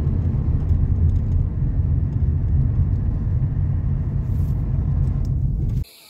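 Steady low rumble of road and engine noise inside a moving car's cabin. It cuts off abruptly just before the end.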